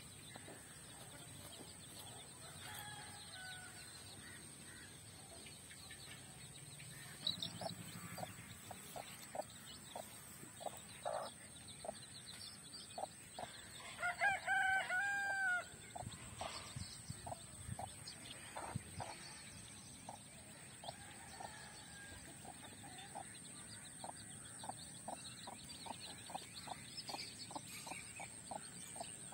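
A mother hen clucking to her chicks in short, low, repeated clucks, coming about two a second later on. About halfway through, a rooster crows once, a drawn-out call lasting about a second and a half that is the loudest sound.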